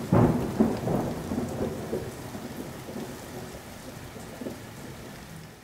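Audience applause, loud at first and fading steadily away.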